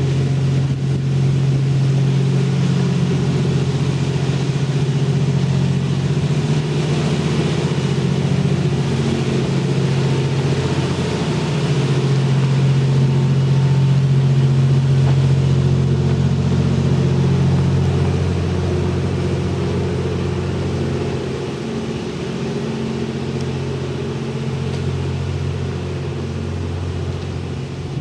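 Diesel engine running steadily at a constant low speed, with a little swell in level midway and a slight easing toward the end.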